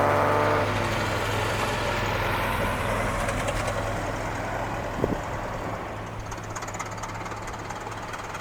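Farm tractor engine running: a rising rev dies away in the first second, then a steady low engine note that slowly fades, with one short sharp knock about five seconds in. Wind noise runs under it.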